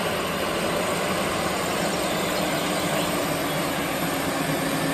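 JCB Fastrac tractor's diesel engine running steadily while it pulls a plough through a field, with a constant engine hum.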